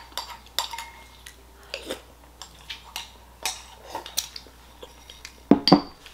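Ceramic soup spoon clinking and scraping against a ceramic bowl in a string of short ringing clinks as the last of the congee is scooped out. Near the end the bowl is set down on the table with two louder knocks.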